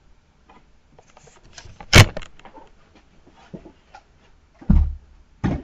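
Scattered clicks and knocks: a sharp click about two seconds in, and two dull thumps near the end.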